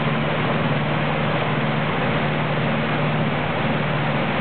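Fishing boat's engine running steadily under way, a constant low hum over the rush of water and wind.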